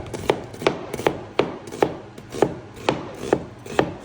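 Knife chopping raw chicken into pieces on a cutting board, about ten sharp even strokes at roughly two and a half a second.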